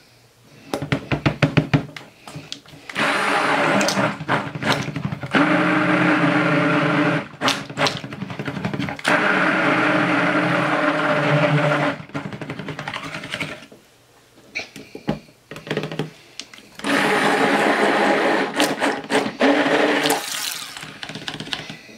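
Handheld stick blender running in several runs of a few seconds each, with short pulses and clicks between them, mixing thin cold-process soap batter that is still loose and being blended thicker.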